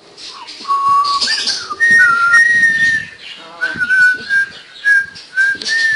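Clear whistling: a held note, then rising glides and a long high note, then a run of short notes about two a second.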